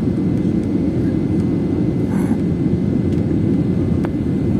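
Steady low roar of an airliner's engines and airflow during landing.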